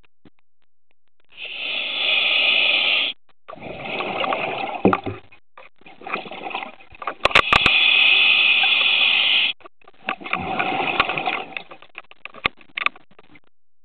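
Scuba regulator exhaust: the diver's exhaled bubbles rushing out in four long bubbling bursts, one per breath, with short quiet pauses between them. A few sharp clicks sound near the middle.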